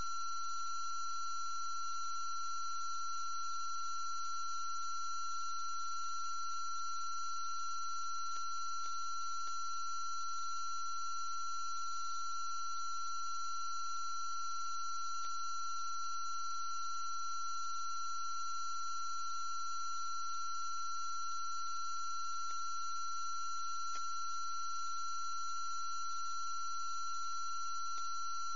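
A steady electronic whine made of several constant high tones, one standing out, that never changes in pitch or level. A few faint clicks come through at odd moments.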